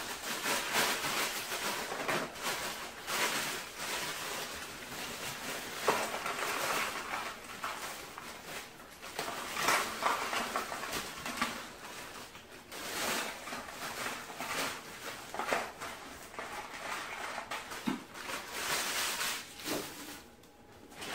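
Frozen vegetable pieces clattering into plastic meal-prep containers as a plastic bag of frozen broccoli-and-cauliflower mix crinkles and rustles, a continuous run of small knocks and rustles.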